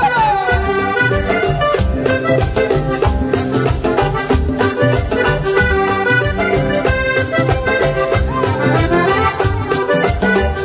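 Live Panamanian música típica: a button accordion leads over electric guitar and a steady drum and percussion beat.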